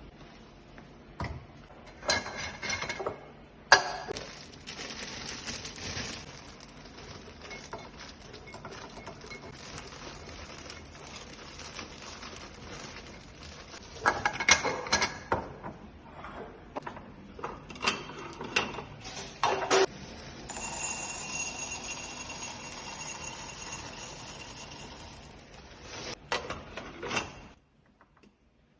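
Objects being handled, with scattered knocks, clinks and rustling over a steady hiss. The clatter is busiest around a few seconds in, again midway, and near the end, and the sound cuts off suddenly shortly before the end.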